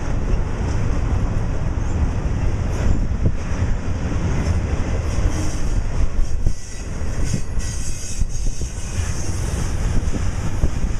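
Union Pacific freight train's cars rolling past close by, steel wheels clattering over the rails in a loud, steady rumble with repeated clacks.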